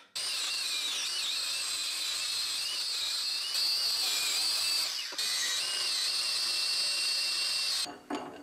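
Angle grinder spinning a wire wheel against the spoked metal gear wheel of a 1922 Daisy butter churn, wire-brushing it clean: a steady high-pitched whine with the scratch of the wire, broken briefly about five seconds in. It stops shortly before the end.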